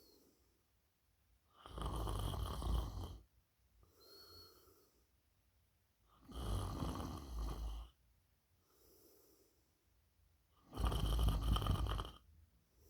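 A person snoring in sleep: three loud snores about four and a half seconds apart, each lasting about a second and a half, with softer breaths between them.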